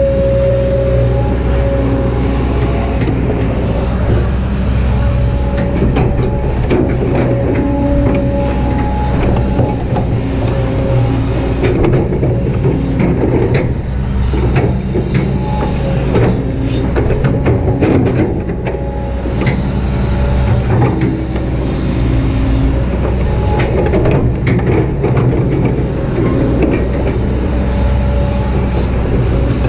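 Kobelco SK200-8 hydraulic excavator's diesel engine running steadily under load, with the hydraulics whining as pitched tones come and go. Clicks and knocks cluster in the middle, typical of the bucket scraping and working the soil.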